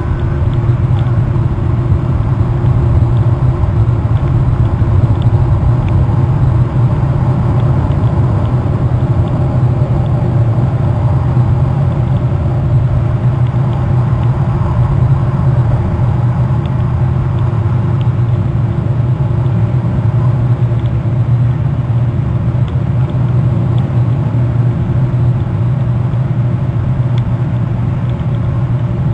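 A steady low rumble, unbroken and even in level, with a few faint ticks scattered through it.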